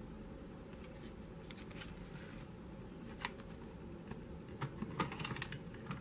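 Faint scattered clicks over a low steady hum: a single click about three seconds in, then a quick run of several clicks near the end.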